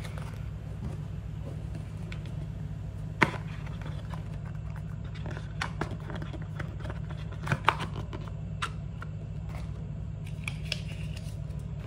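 Small cardboard box being handled and opened: scattered sharp taps and clicks of the box and lid, the loudest about three seconds in and a pair a little after halfway, over a steady low hum.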